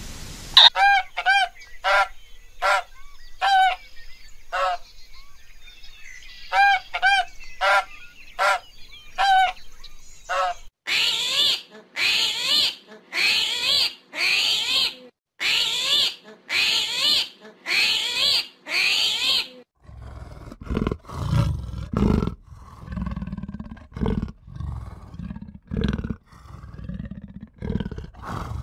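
Animal calls in three runs: about a dozen short, ringing, pitched calls, then about nine loud, harsh calls at roughly one a second, then a series of deep, low grunting calls.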